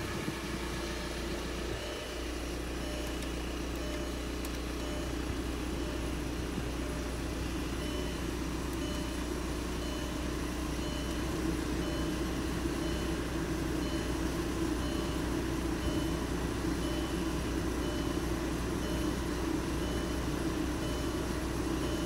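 VW Golf TDI's four-cylinder turbo-diesel idling steadily just after a cold start. A faint high-pitched beep repeats about once a second.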